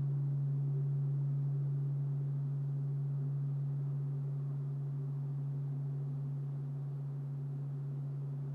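Bronze Buddhist temple bell (bonshō) humming on after a strike: one deep steady hum with fainter higher tones above it, slowly fading.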